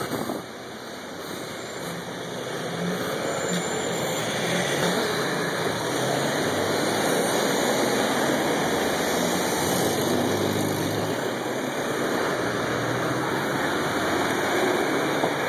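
A motor vehicle's engine running close by, getting louder over the first few seconds and then holding steady.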